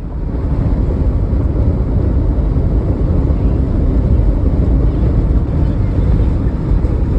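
Loud wind and road noise in a moving car, with a heavy low rumble of wind buffeting the microphone, starting suddenly and then holding steady.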